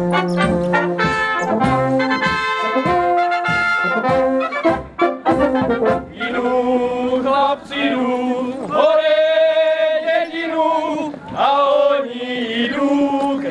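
Brass band playing a lively folk tune, with short breaks between phrases.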